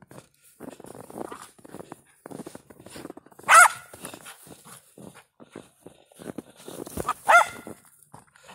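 A small terrier barking twice, two short high yaps about four seconds apart, with light crunching and scuffling of paws in snow in between.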